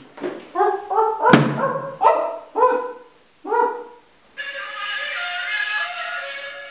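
A string of about seven short barking calls, roughly two a second, with a sharp knock about a second in. Just after four seconds, music starts abruptly and plays steadily.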